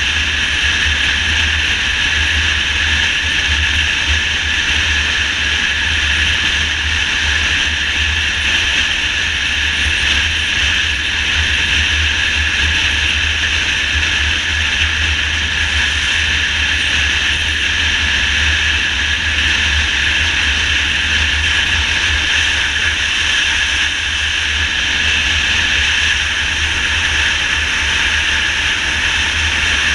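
Motorcycle cruising at highway speed: steady wind rush with low buffeting on the microphone over the running engine and road noise.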